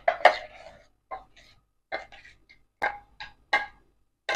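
Fingers scraping thick ground ragi batter out of a steel mixer-grinder jar: a string of short wet scrapes and knocks against the steel, about one every half second to second.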